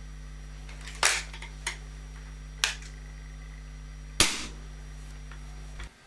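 SMK XS20 air rifle with a .177 barrel fired three times, sharp cracks about a second and a half apart, the last the loudest, with a smaller click between the first two. A steady low hum underneath stops just before the end.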